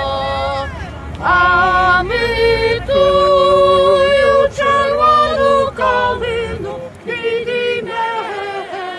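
A woman's voice singing a slow melody with long held notes, with short breaks about a second in and again near seven seconds.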